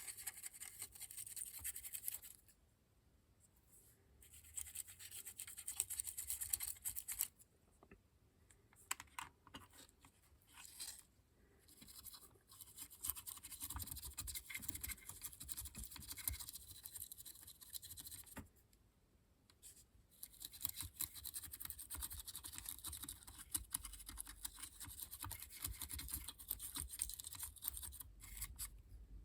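Brush scrubbing weathering pigment powder onto a model locomotive, a rapid dry scratching in spells broken by short pauses.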